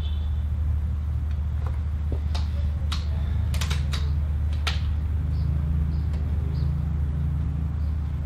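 A quick series of sharp metallic clicks and clacks from the Cometa Orion bullpup PCP air rifle's action being cycled to reload between shots, heard over a steady low rumble.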